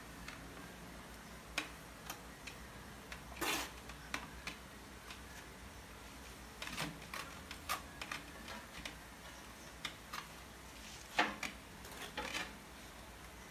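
A trowel clicking and scraping against small mosaic tiles as cement grout is worked over a tiled stair tread: irregular light clicks, two louder ones about three and a half and eleven seconds in.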